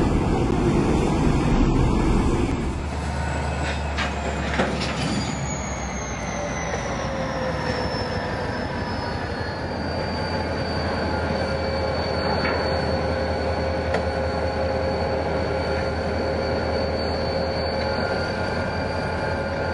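A light-metro train running past on an elevated guideway for about the first three seconds. Then a slow freight train rolling through a rail yard, its wheels squealing: a high squeal that slides down in pitch a few seconds in and then holds steady, with a lower squeal tone under it and a few clicks.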